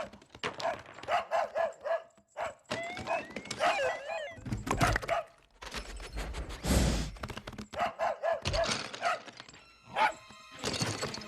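A dog barking in quick groups of short yips, with a thud a little past halfway.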